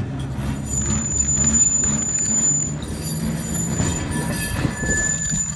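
Heritage electric tram running along its track, with a steady low motor hum and some knocks. A thin, high wheel squeal comes in about a second in, stops, and returns near the end.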